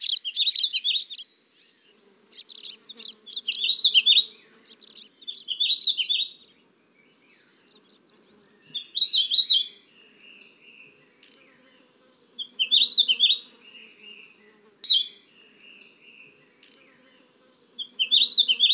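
Songbirds singing in short phrases of rapid high chirps, close together at first and then coming every few seconds. A faint low buzz runs underneath from about two seconds in.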